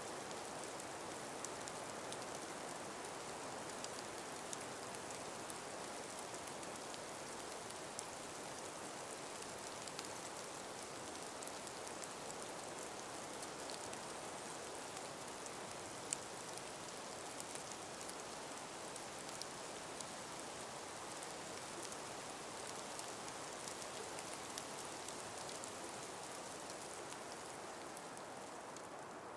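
Calm breeze through an ice- and snow-laden forest: a steady soft hiss with many small, scattered ticks and patters, and one sharper tick about halfway through.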